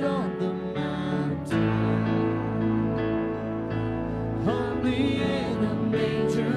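Church worship band playing an instrumental passage of a Christmas worship song, with held chords and a few sliding melodic notes.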